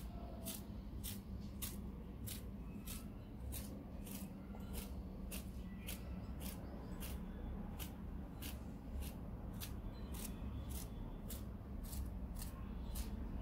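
A finger flicking the paint-loaded bristles of a toothbrush over and over, spattering paint onto paper: short crisp flicks about twice a second, over a low steady hum.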